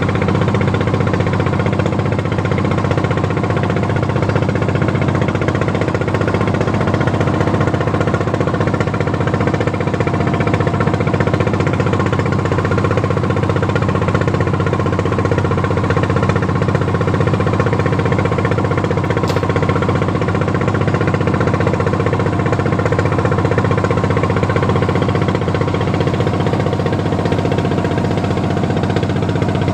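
A fishing boat's engine running steadily while under way.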